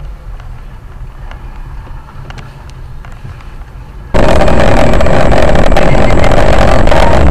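Low, steady rumble of a vehicle on the move, as picked up by a dash cam. About four seconds in, it switches abruptly to a very loud, steady, overloaded noise.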